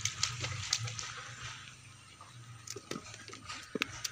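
Faint outdoor water ambience: a soft steady hiss with scattered light clicks and ticks, more of them near the end.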